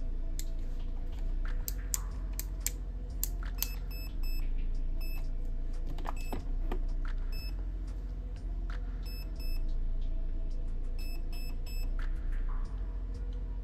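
Airsoft AEG's MOSFET beeping in short groups of two or three, the confirmation tones of its programming mode, with sharp clicks in between over a steady low hum.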